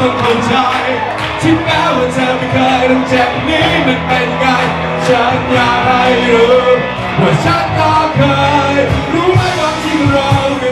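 Live rock band playing loudly through a PA: a male voice singing into a microphone over electric guitar and a steady drum beat.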